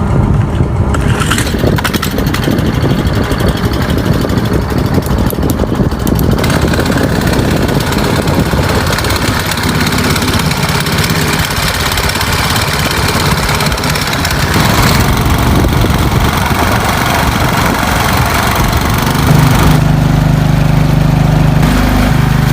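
A small boat's engine running steadily, its tone growing louder and steadier near the end.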